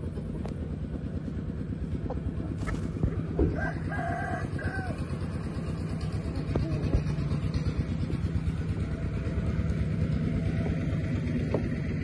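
A rooster crowing once, about four seconds in, over a steady low rumble.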